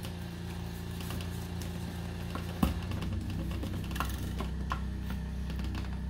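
Small clicks and rustles of the plastic outer sheathing of electrical cable being slit with a knife and peeled back from the wires, over a steady low hum. A sharper click comes about two and a half seconds in.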